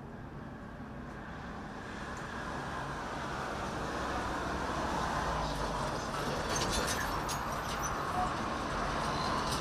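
Steady engine and traffic rush that grows gradually louder over several seconds, with a few faint clicks in the second half.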